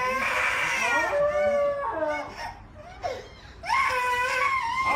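A toddler crying while a husky-type dog howls along with her. There are long wavering wails in the first two seconds and again from about four seconds in, with shorter, quieter cries between.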